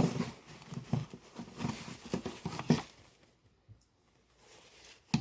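Handling noise from a plastic animatronic Baby Yoda toy: a quick run of soft knocks, taps and rustles, then a lull and one sharp click near the end.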